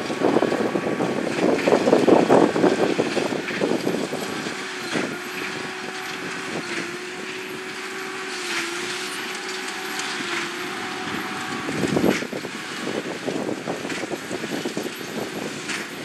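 New Holland T7.245 tractor pulling a Massey Ferguson 2290 large square baler through straw: the engine runs under load over the clatter of the baler. It is rougher and louder in the first few seconds, then settles to a steadier hum, with a loud thump about twelve seconds in.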